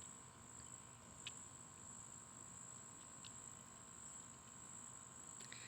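Faint outdoor ambience of a steady, high-pitched insect chorus, with two soft ticks, about a second in and about three seconds in.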